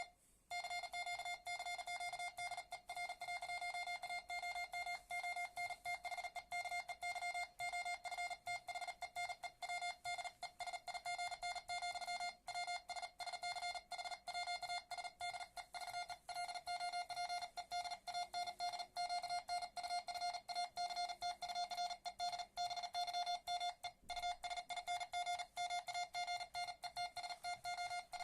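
Morse code (CW) sidetone keyed with a single-lever paddle at high speed, roughly 45 words a minute: a single steady beep-tone broken into a very fast, continuous run of dits and dahs, with only a short gap just after the start.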